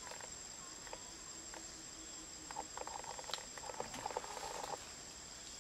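Forest insects keeping up a steady high-pitched whine, with short bursts of rapid clicking about halfway through.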